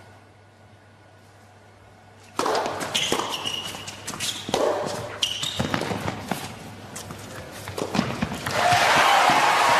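Tennis ball struck back and forth in a rally on an indoor hard court, sharp hits and bounces with a few shoe squeaks, starting after a quiet couple of seconds. Near the end the crowd breaks into applause as the point finishes.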